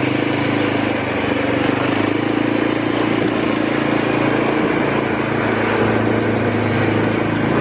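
Small motorbike engine running steadily under a rider, with wind and road rush on the microphone.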